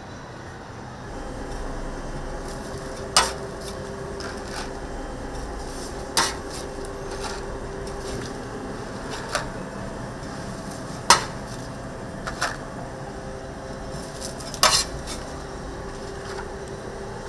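Metal kitchen utensils clinking sharply against pans, about six times a few seconds apart, over a steady hum.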